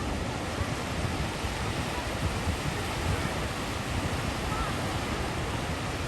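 Sea waves washing on the shore: a steady surf noise with a low rumble.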